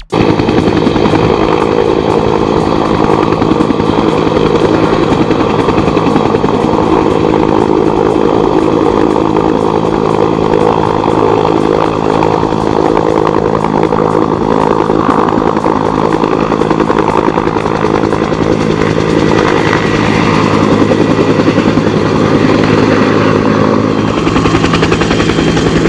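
Forest Service firefighting helicopter flying close, a loud, steady rapid rotor chop over the drone of its engine.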